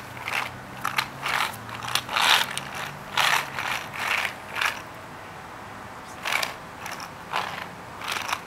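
Plastic wheels of toy quad roller skates rattling over rough asphalt in short, irregular bursts as a small child shuffles forward step by step, with a pause of about a second and a half past the middle.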